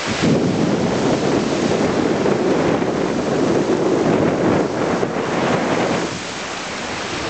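Small wind-driven waves breaking and washing on a lake shore, with wind buffeting the microphone.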